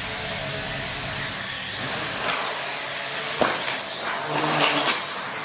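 Small quadcopter drone's electric motors and propellers whirring with a steady high whine and hiss, broken by a few sharp knocks, the loudest about three and a half seconds in.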